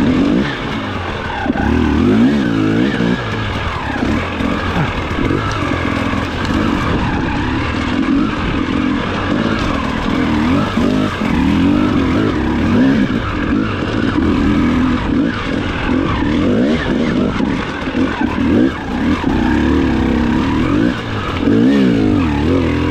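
Enduro motorcycle engine running hard, its revs rising and falling over and over as the throttle is worked.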